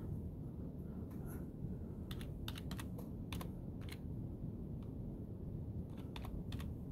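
Typing on a computer keyboard: a quick run of key clicks about two seconds in and another short run near the end, over a steady low hum.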